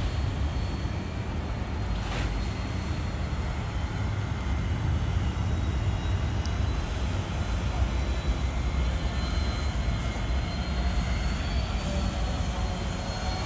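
Jet aircraft engine rumble, steady and low, with a faint high whine above it.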